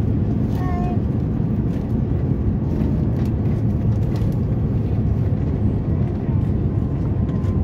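Steady low roar inside the cabin of an Airbus A350-900 on its landing approach: airflow and its Rolls-Royce Trent XWB engines, heard through the fuselage at an even level.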